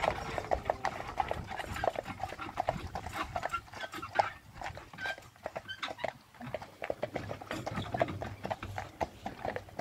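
Hooves of a pair of carriage horses on a dirt track, a steady run of dull knocks, with the harness and carriage rattling along.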